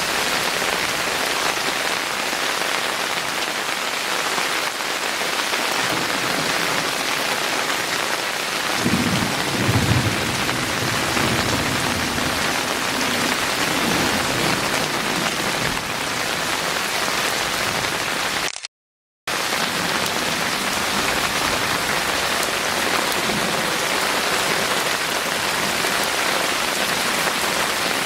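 Heavy rain falling steadily, with a low rumble of thunder building about six seconds in, loudest around nine to ten seconds and fading away a few seconds later. The sound cuts out for about half a second some two-thirds of the way through.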